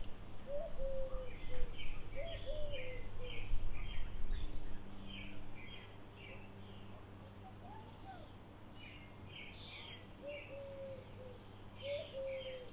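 Outdoor rural ambience: a steady, high insect trill with birds chirping and a lower, falling whistled call repeated a few times. A low rumble fades out about five seconds in.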